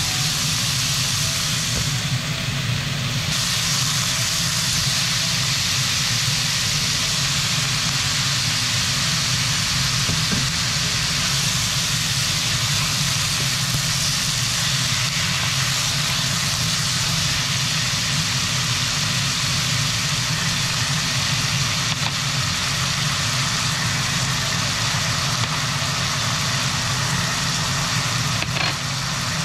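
Pork and vegetables sizzling steadily in a frying pan as they are stir-fried, over a steady low hum.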